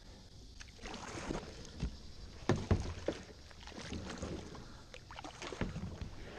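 Kayak paddle strokes splashing and swishing through shallow floodwater, with a few sharp knocks, the loudest about two and a half seconds in.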